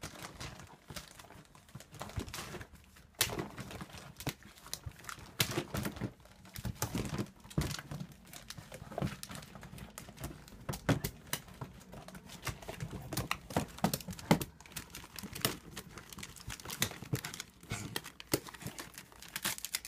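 A cat climbing among a plastic storage bin, a plastic bag and rolls of wrapping paper: irregular rustling and crinkling with light knocks and clatters.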